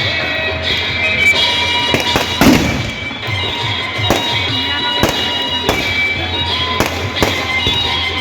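Fireworks going off in a string of sharp bangs, roughly one a second, the loudest with a deep boom about two and a half seconds in, over music playing.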